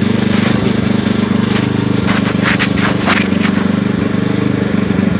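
Small engine running steadily at a constant speed, driving a water pump that drains a rice paddy. A few short clatters come around the middle.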